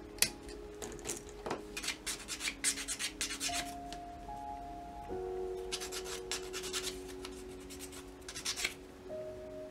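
Side cutters snipping a styrene part off its plastic sprue with one sharp click, then a sanding stick scraping back and forth over the cut edge in quick strokes, in three runs.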